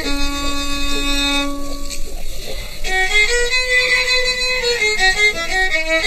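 Solo violin played live, bowing a slow melody: a long held note to start, then a phrase of changing notes with another held note about the middle.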